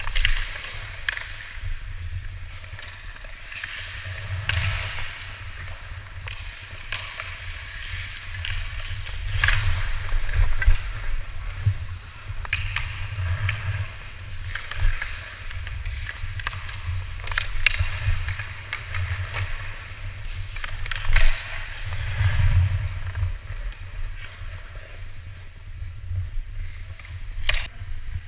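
Ice hockey skates gliding and scraping on rink ice in swelling bursts, with scattered sharp clacks of sticks and puck over a steady low rumble.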